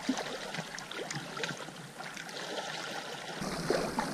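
Small lake waves lapping and splashing against a rocky shoreline and the side of an inflatable packraft, many small irregular splashes. About three seconds in it switches to wind rumbling on the microphone and paddle splashes as the packraft is paddled through the chop.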